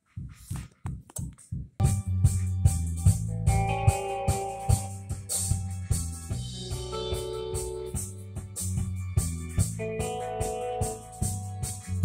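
Music streamed over Bluetooth and played through an Onkyo TX-NR757 AV receiver and its speakers. It starts with a few sparse drum hits, and about two seconds in the full track comes in, with drums, bass and keyboard.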